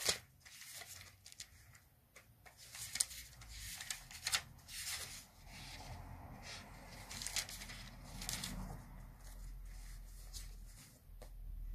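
Faint rustling of thin book pages being leafed through by hand, with scattered soft clicks and rubs, as a Bible is searched for a verse.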